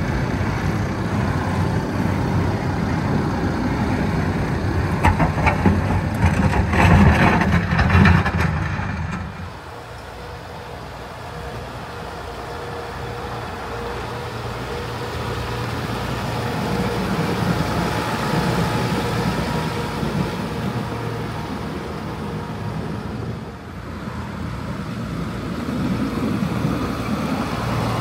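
Motor vehicle engine and road noise, fairly loud and steady. The sound drops and changes abruptly about nine seconds in.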